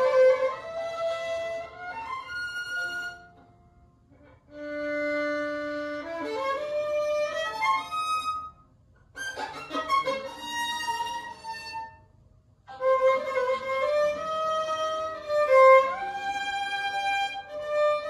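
Unaccompanied violin, bowed, playing a slow Romantic piece in short phrases with held notes, broken by three brief rests, about four, eight and a half and twelve seconds in.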